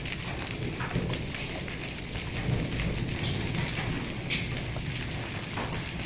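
Heavy rain mixed with hail falling on a concrete courtyard floor: a steady hiss of rain dotted with many small, sharp hailstone hits.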